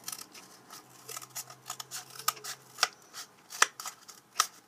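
Small hand scissors cutting a cardboard toilet-paper tube: a run of irregular sharp snips, the loudest about three and a half seconds in.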